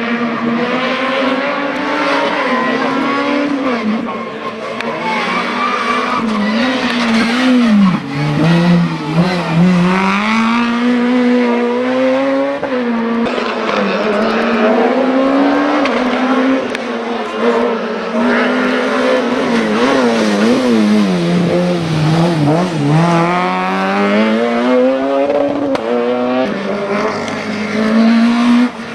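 A hill-climb race car's engine at full throttle, its pitch climbing through each gear and dropping again and again as it shifts and lifts off for the bends.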